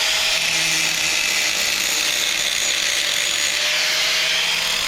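Angle grinder running steadily against steel, grinding down fresh weld beads on the swim ladder extensions, a constant high-pitched grinding hiss with a faint steady whine.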